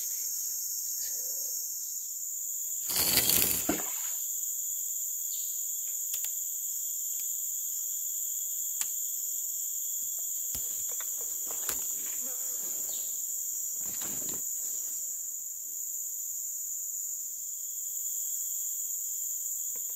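Steady, high-pitched chorus of forest insects, several pitches at once. About three seconds in there is a brief loud rustle, and a few light clicks follow.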